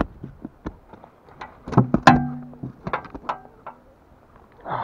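A string of sharp knocks, clicks and thuds on the boat and fishing gear as a small pike is landed and handled aboard, with a short held pitched sound about two seconds in.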